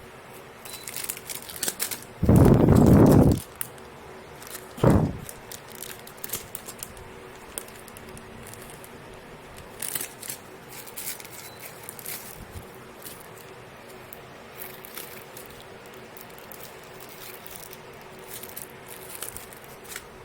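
Parcel being unwrapped by hand: packaging crinkling and tearing. There is a loud rustling burst about two seconds in and a shorter one about five seconds in, then scattered light crinkles.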